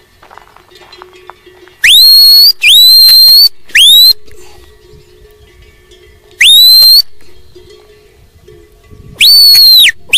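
Shepherd's whistled commands to herding dogs working a flock. There are five loud, piercing whistles, each swooping up sharply and then held. Three come in quick succession about two seconds in, one comes around six and a half seconds, and one comes near the end.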